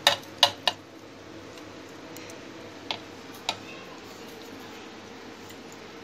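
A metal spoon clicks against a plastic spice tray: three sharp clicks in the first second, then two lighter taps about three seconds in, as spices are tipped into a steel mixer-grinder jar.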